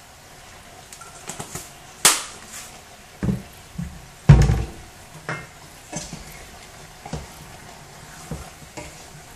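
Kitchen clatter at the stove: sharp knocks with a brief ring about two and four seconds in, the second the loudest. Then a wooden spoon stirring in a metal pot, knocking lightly against it about once a second.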